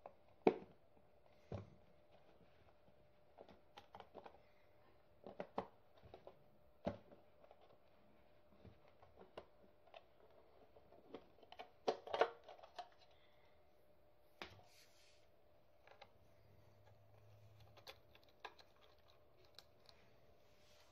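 Clear plastic case of an N-gauge model tram being handled and opened by hand: scattered faint clicks, taps and rattles of plastic, with a denser cluster about twelve seconds in.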